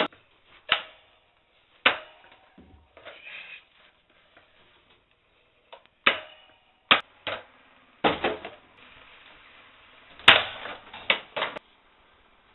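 Desk fan being knocked and struck: a series of sharp knocks and short clattering rattles at irregular intervals, with brief quiet gaps between them.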